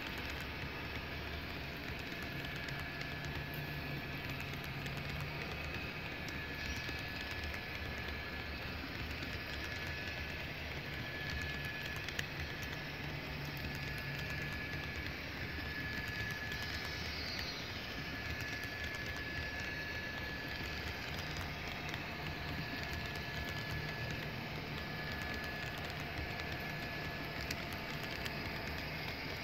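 HO-scale model covered hopper cars rolling past on track, a steady rumble and clatter of their wheels on the rails, with a faint thin high tone that comes and goes.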